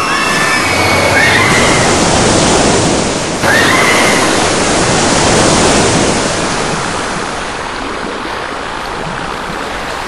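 A shoot-the-chutes water-ride boat running down its steep drop chute with a loud rush of water. About three and a half seconds in the rush jumps suddenly louder as the boat hits the pool and throws up its wall of spray. After that it eases into a softer, steady wash as the boat coasts out along the runout.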